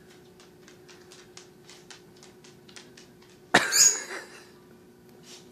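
Faint, regular ticking about three times a second over a low steady hum. A little past halfway, one loud, short, breathy burst.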